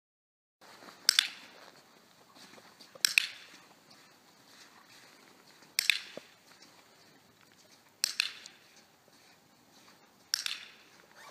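Handheld dog-training clicker clicking five times, roughly every two seconds, each click sharp and echoing in a large hall: the click that marks and rewards a puppy walking in the correct heel position.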